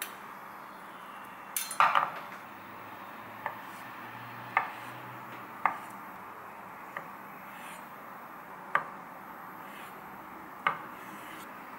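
Chef's knife slicing avocado on a wooden cutting board: a quick cluster of sharp knocks about two seconds in, then single knocks of the blade on the board every second or two.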